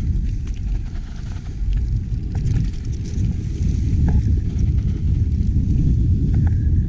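Mountain bike riding down a rough trail, heard from a chest-mounted action camera: a steady low rumble of tyres and wind on the microphone, with scattered small clicks and rattles.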